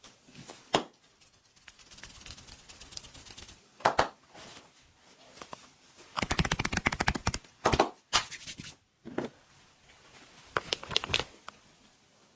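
Massage by hand: a series of sharp slaps and pats on the body, with a quick run of rapid tapping strokes about six seconds in.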